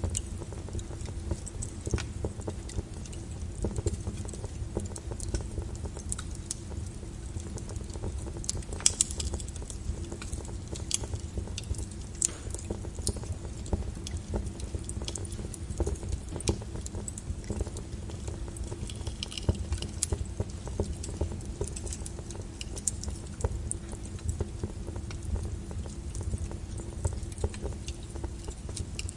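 Brown noise, a steady low rumble, with a fire crackling over it in irregular sharp pops.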